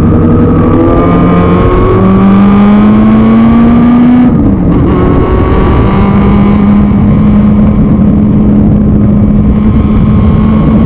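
Formula Junior single-seater race car's engine heard onboard under hard acceleration: the note climbs steadily for about four seconds, drops briefly at what sounds like an upshift, then holds a steady high note, with wind rush over it.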